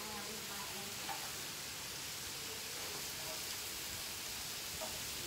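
Slices of meat sizzling steadily on a hot barbecue grill plate.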